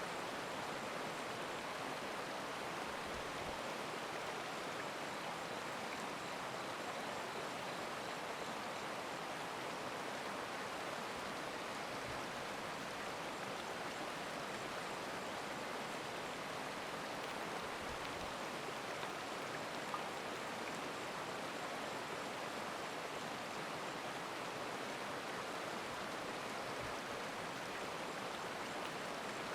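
A stream flowing, its water rushing in an even, unbroken wash.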